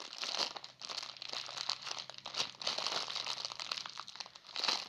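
Thin plastic packaging crinkling continuously as it is handled, a dense crackle of fine rapid clicks.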